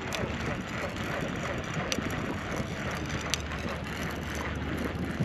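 Fishing reel being wound in to retrieve the rig, a steady grinding whirr with a few sharp clicks.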